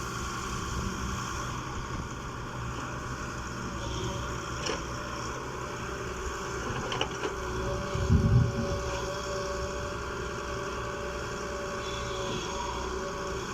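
Excavator diesel engine running steadily, with a few light clicks and one heavy low thump about eight seconds in.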